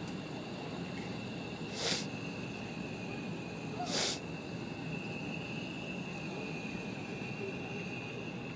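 Steady rushing noise of a propane flame art piece burning, with a faint steady high whine, broken by two short, sharp hissing bursts about two seconds apart.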